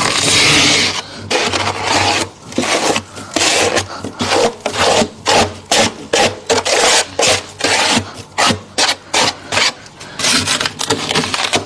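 Freezer frost being scraped: one long rasping stroke, then a quick run of short scraping strokes, about two or three a second.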